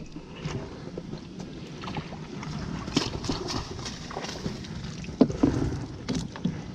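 Water sloshing and splashing beside a small boat as a long-handled dip net is worked through the canal water, with a few sharper splashes about three seconds in and again around five to six seconds in.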